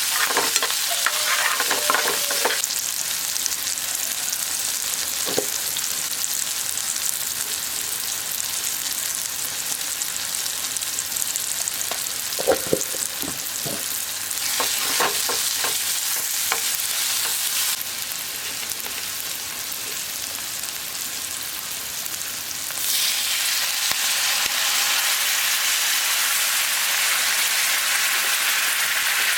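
Food sizzling as it fries in hot oil in a pan, with a spoon or spatula stirring it and now and then knocking and clattering against the pan. The sizzle swells and eases a few times and is loudest near the end.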